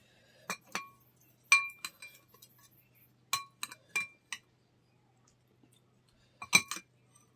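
Steel spoon clinking against a serving bowl of fish curry while scooping it out: a dozen or so short, ringing clinks in three quick clusters, the last and loudest near the end.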